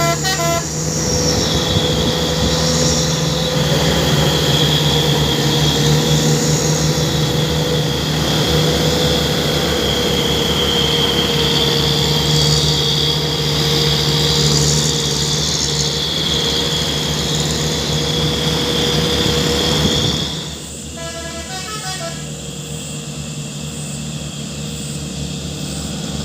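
Truck telolet horn. It opens with a quick run of stepped tones, then sounds as one long, steady, multi-tone blast over the running truck. About twenty seconds in the blast cuts off, and a softer short run of stepped tones follows.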